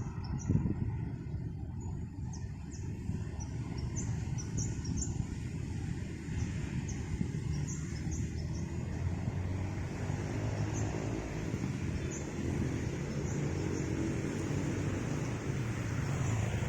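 A road vehicle's engine running steadily, its low rumble growing a little fuller in the second half, with short high bird chirps over it.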